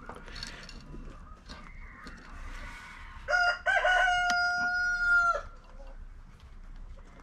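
A rooster crowing once, about three seconds in: a few short notes, then one long held note, lasting about two seconds. A single sharp click sounds partway through the crow.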